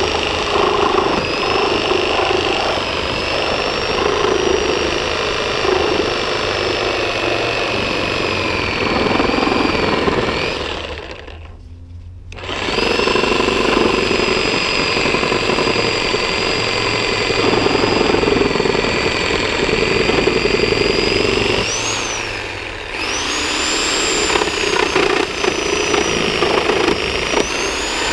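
Corded Skil reciprocating saw with a Milwaukee nail-embedded wood blade, cutting through a pallet's nails and wood. Its motor whine wavers as the load changes. It stops about 11 seconds in and starts again a second or so later, then eases off briefly near 22 seconds and speeds up again.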